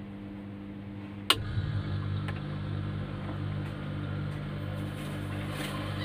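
Refrigerator humming steadily; a sharp click just over a second in, then a deeper, louder hum sets in and runs on, as when the fridge's compressor starts.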